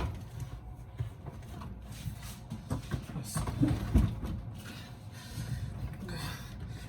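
Heavy refrigerator being shoved, with scattered knocks and bumps as it catches on something, loudest about four seconds in, along with a man's short grunts of effort.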